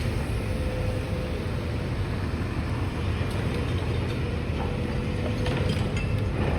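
Steady low engine rumble with a faint constant hum.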